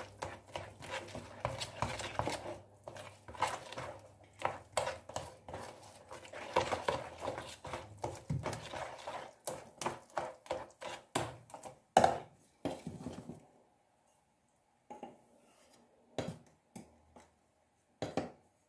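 Wire dough whisk stirring through stiffening yeast dough and flour in a plastic bowl, a quick run of scraping, knocking strokes against the bowl. The stirring stops about two-thirds of the way through, followed by a few separate knocks.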